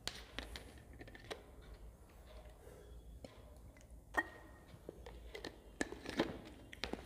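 Quiet room tone with a low hum, broken by scattered faint clicks and taps, a sharper one about four seconds in and several more near the end.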